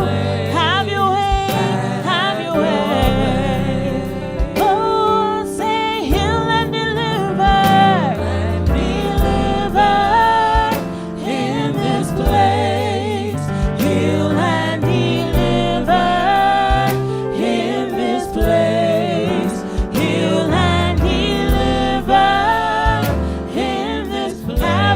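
Gospel worship music: wavering sung voices over a band with a steady bass line and regular drum hits.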